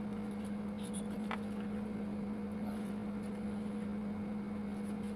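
A steady, constant-pitch low hum with a background hiss, and a few faint clicks as the stiff paper parts of a papercraft robot model are handled and fitted together.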